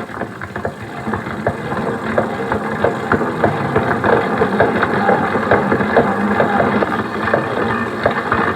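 Weaving workshop equipment clattering steadily: a run of quick wooden clicks and knocks over a continuous mechanical rumble.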